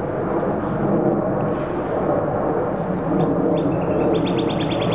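Boeing 737 airliner's jet engines passing overhead, a steady rumble. About three seconds in, a rapid high-pitched pulsing starts over it.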